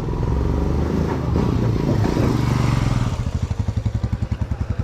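A motor vehicle engine running, then settling into an even pulsing idle about three seconds in.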